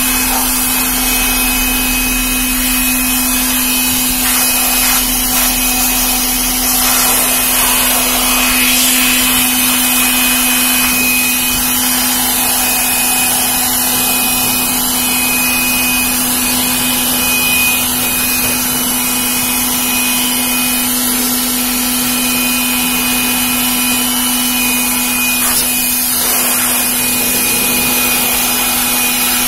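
Richu hand-held electric blower running steadily, its motor giving a constant hum with a thin high whine above it while air rushes out of the nozzle.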